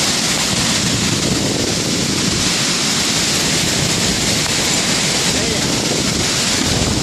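Hurricane-force wind and rain, a loud steady rush with wind buffeting the microphone.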